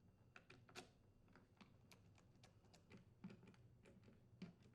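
Near silence with faint, irregular light clicks and taps: the screws and the plastic halves of a string trimmer's handle being handled and screwed together.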